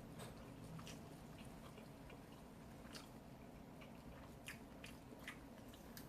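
Faint chewing and soft mouth clicks of someone eating sushi rolls, with a few brief clicks scattered through.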